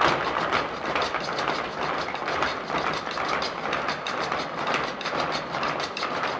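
Rapid, rhythmic stamping of many dancers' heels and shoes on a stage floor: zapateado footwork by a Mexican folk dance troupe.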